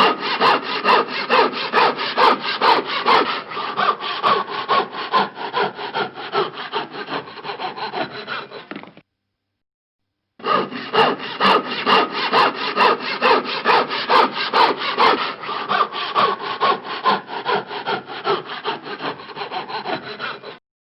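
Handsaw cutting wood with quick, even back-and-forth strokes. The sawing stops about nine seconds in and starts again after a pause of about a second and a half.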